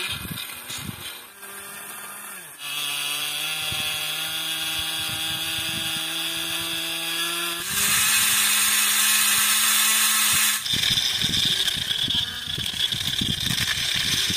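Small electric motors of a toy borewell drilling rig running as it drills into soil. The steady hum steps abruptly to a different pitch a few times, and in the last few seconds a dense rattle of the bit churning through dirt and gravel comes in.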